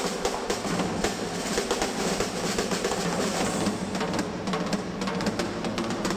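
Fast, busy percussive music with rapid drum hits.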